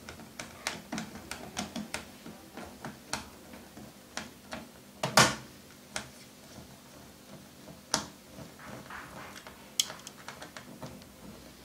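Small screwdriver turning a keyboard screw into the plastic underside of an IBM ThinkPad laptop: irregular light clicks and ticks of the bit, screw and case, with a few louder clicks, the loudest about five seconds in.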